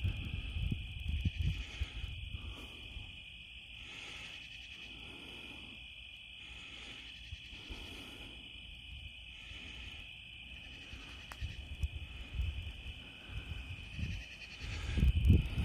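Night insects chirring in a steady high band throughout. Low rolling thunder rumbles over the first couple of seconds, just after a lightning flash, and swells again near the end.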